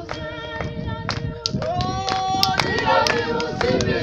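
People singing, with hand claps falling irregularly over the held, gliding notes.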